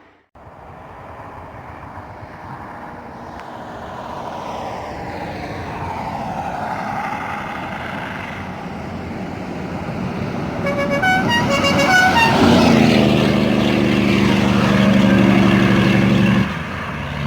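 Diesel bus approaching, its engine growing steadily louder, then sounding a musical horn: a quick run of stepped notes about eleven seconds in, followed by a long steady horn chord that cuts off abruptly near the end.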